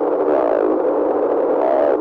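Heavily processed, distorted synthesizer sound: several pitched tones that waver and warble up and down continuously.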